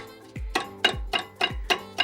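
Background music with a steady beat: deep, regular drum hits about twice a second with sharper clicky percussion between them.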